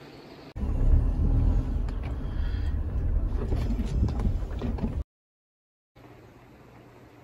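Jeep Rubicon creeping in reverse on a rough back road: a loud low engine-and-tyre rumble with scattered clicks and knocks cuts in abruptly about half a second in. It stops dead after about five seconds, and after a second of silence a quieter steady rumble follows.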